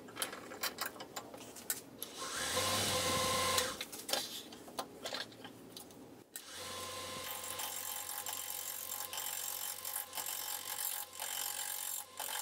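Wood lathe being set up and started. A few clicks and knocks as the red oak blank is seated in the chuck and the tailstock brought up, with a brief whirring noise about two seconds in. From about six seconds in, the lathe motor runs with a steady hum as the blank spins.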